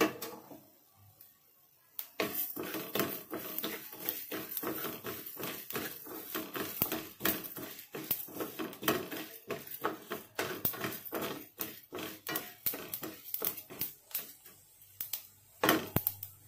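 Wooden spatula stirring pearl millet and coriander seeds as they dry-roast in a metal pan: quick scraping strokes and small seeds rattling against the metal. It starts about two seconds in, eases off near the end, and a single sharp knock comes shortly before the end.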